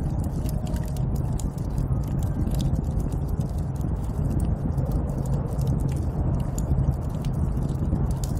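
Snowstorm wind heard from inside a cabin: a steady, deep rushing, with many small crackles and ticks scattered through it.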